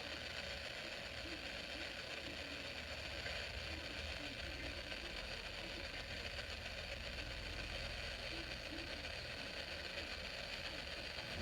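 Dead air on the broadcast feed: a steady faint hiss with a low hum underneath, and no voice or alert tones.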